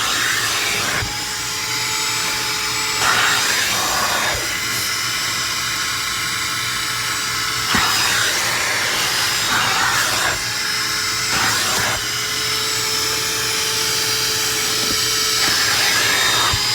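Small Shop-Vac 1.5-gallon wet/dry vacuum running loudly as its nozzle is worked over car carpet to pull up pet hair and dead grass. Its whine shifts in pitch several times as the nozzle presses into and lifts off the carpet.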